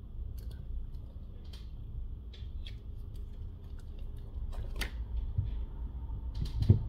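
Scattered light clicks and taps of a plastic phone back cover and small tools being handled on a work mat, with a louder tap a little before five seconds in and a dull thump near the end, over a steady low hum.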